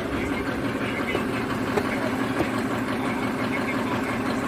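Passenger van's engine idling steadily, with a couple of light knocks about two seconds in.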